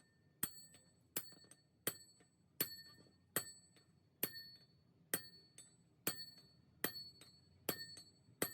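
Steady hammer blows on a steel part, about one every three-quarters of a second, eleven in all, each strike sharp and followed by a brief bell-like ring of the metal.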